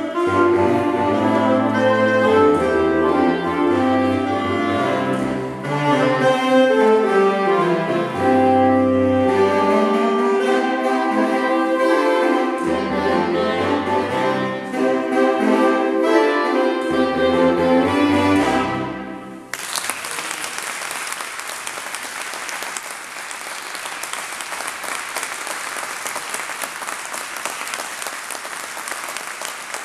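Saxophone quartet of soprano, alto, tenor and baritone saxophones playing a piece to its close, which comes about two-thirds of the way through. Audience applause then breaks out and carries on steadily.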